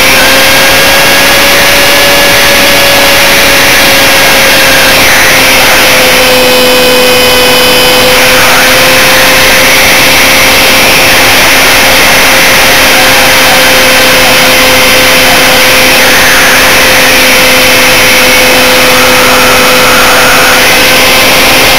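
Electric motor and propeller of an Electrafun RC plane running loud and steady, heard from a camera on its nose, the whine wavering slightly in pitch, with wind rushing over the microphone in several swells as the plane banks.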